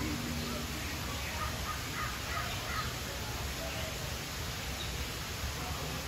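Birds calling: a quick run of short chirps in the first half, then a few scattered calls, over a steady rushing haze from the aviary's waterfall.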